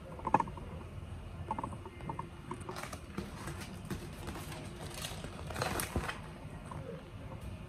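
Plastic packaging of a pack of synthetic braiding hair crinkling and rustling as it is handled, with scattered small clicks and a denser crackle about five to six seconds in.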